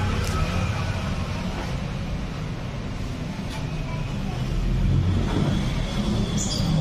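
Steady low rumble of motor vehicle traffic, getting louder about five seconds in.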